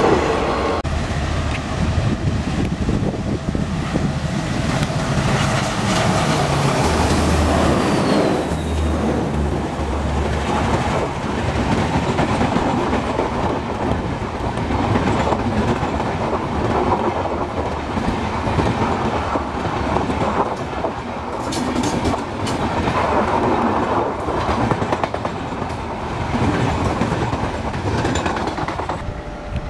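Indian Railways passenger train coaches passing close by at speed: a continuous clatter of wheels over the rail joints with the rush of the moving train.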